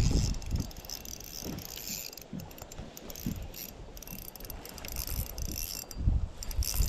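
Fishing reel being cranked, with irregular gusts of wind on the microphone, loudest at the start and near the end.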